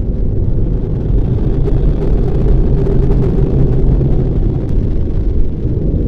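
Loud, steady low rumble with no distinct events.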